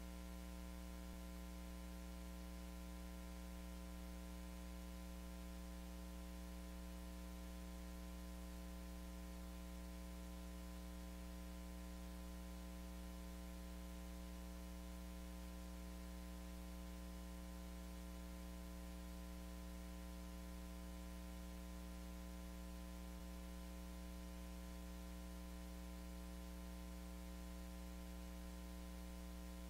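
Steady electrical mains hum with hiss and no other sound: the noise of a recording chain whose microphone is switched off, so none of the shop work comes through.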